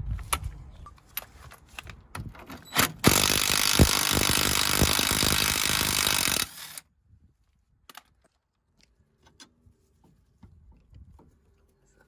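A few clicks and knocks, then a DeWalt 10.8 V cordless impact gun hammering for about three and a half seconds as it undoes the 19 mm nut on an anti-roll bar link. It stops suddenly.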